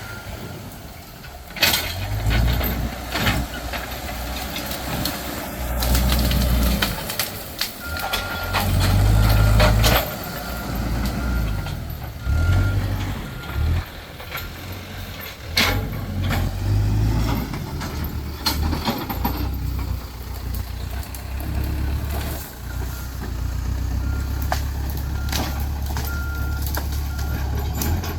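Diesel engine of a heavy earthmoving machine working under varying load, its rumble rising and falling. Twice, its backup alarm beeps in a run of short repeated beeps. Scattered clanks and knocks are heard throughout.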